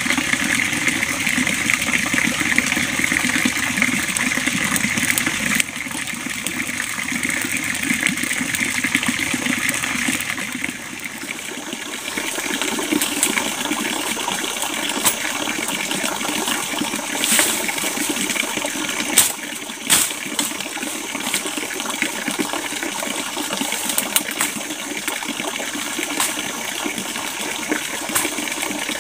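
Steady rushing of water from a forest stream and waterfall, with a few sharp snaps in the second half.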